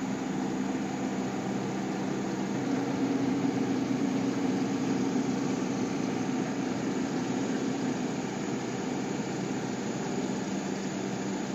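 Horizontal directional drilling rig's engine and hydraulics running steadily as the drill rod is pushed out through the vises, growing louder from about two and a half seconds in and easing off again.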